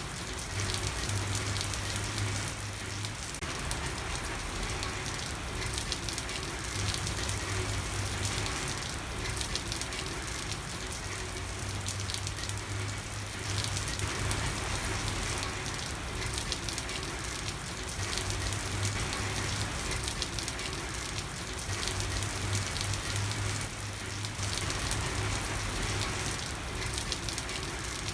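Steady rain falling and pattering on a street and hard surfaces, with a low hum that swells and fades every few seconds underneath.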